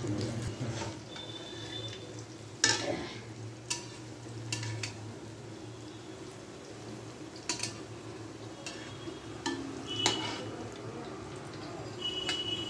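Palm-fruit fritters deep-frying in oil in a steel wok, a steady sizzle over a low hum, broken by about half a dozen sharp clinks of a metal spoon against the wok, the loudest about three seconds in, some leaving a brief metallic ring.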